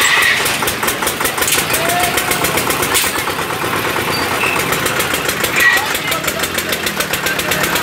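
Busy fairground noise: an engine running steadily under indistinct crowd voices and a few short shouts, with a fast, even ticking and a sharp knock about three seconds in.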